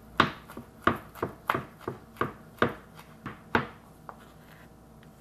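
Kitchen knife mincing basil leaves on a wooden cutting board: a run of about ten uneven chopping knocks, two or three a second, that stops a little under four seconds in.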